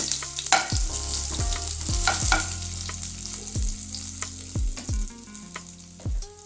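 Hot oil sizzling steadily in a non-stick kadai as cashews, urad dal, chana dal and mustard seeds fry in it, the hiss easing somewhat in the second half. Several short low tones that drop in pitch sound through it.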